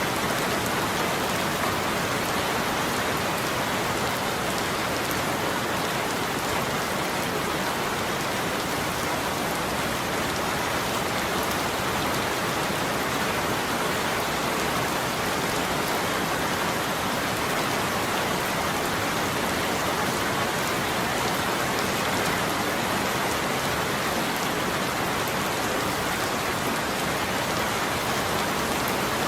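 Steady rain falling, an even hiss of drops with no change in strength and no thunder.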